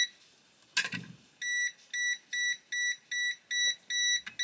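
Venlab VM-600A multimeter's non-contact voltage (NCV) detector beeping in a quick series of short, high beeps, about two and a half a second, starting about a second and a half in. The beeping is the meter's signal that it senses a live (phase) conductor. A single knock of handling about a second in.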